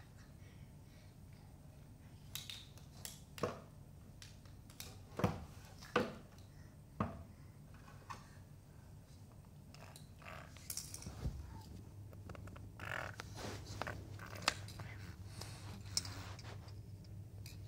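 Scattered light knocks, taps and scrapes from a toddler handling a cardboard puzzle piece by a wooden cabinet, a few sharper knocks a second or so apart in the first half. A low steady hum comes in about halfway through.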